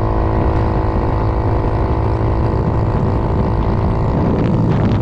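80cc GY6 big-bore scooter engine running steadily at full throttle at about 43 mph, with wind rumbling on the microphone. Near the end the steady engine note breaks up and fades.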